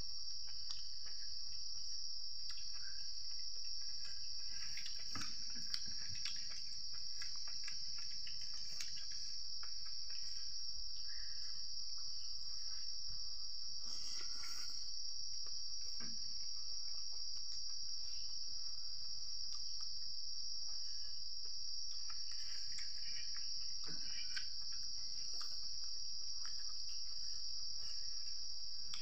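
Steady high-pitched chorus of night insects, likely crickets, without a break. Faint small sounds of hand-eating from a metal bowl sit underneath.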